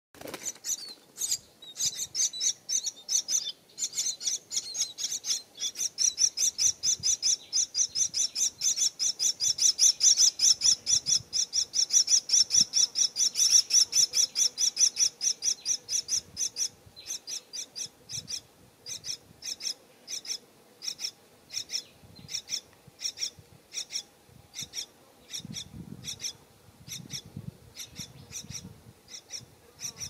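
Parrot nestlings in a tree-hollow nest giving rapid, rasping begging calls, about four or five a second, loudest around the middle. A few low rumbles come near the end.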